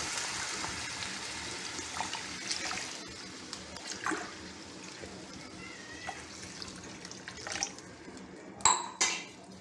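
Water being poured into a saucepan of sautéed vegetables: a steady rush of pouring for about three seconds that fades into a quieter hiss with small clinks. Two sharp knocks near the end.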